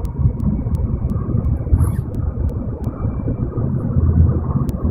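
Cabin noise inside an N700-series Nozomi shinkansen running at speed: a steady low rumble with a few faint clicks and a brief hiss about two seconds in.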